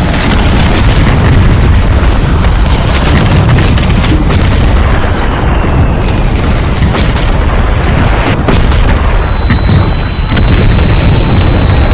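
Loud, layered warfare sound effect: a continuous heavy low rumble of explosions and artillery booms, with frequent sharp cracks of gunfire. A steady high whine comes in about nine seconds in.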